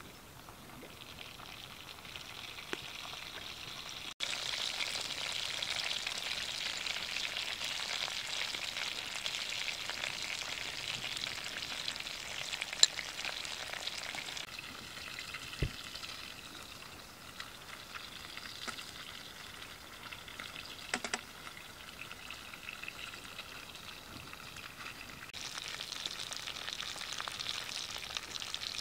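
Fish pieces sizzling as they fry in hot oil in a frying pan, a steady hiss that gets louder about four seconds in. A few sharp clicks sound over it.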